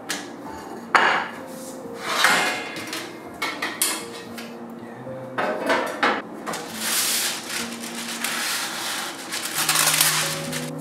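Metal baking trays and a glass bowl knocked and set down on a wooden table, several sharp clatters in the first half. Then baking paper pulled off its roll and rustling, twice, near the end.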